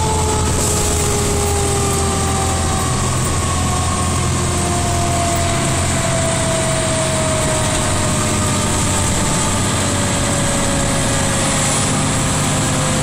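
Fire engine's engine and road noise heard from inside the cab while driving: a steady low drone, with a high whine slowly falling in pitch.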